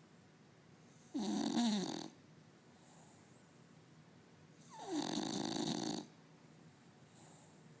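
English bulldog snoring, two rattling snores each about a second long, roughly three seconds apart. The second swells in more gradually, with a falling pitch at its start.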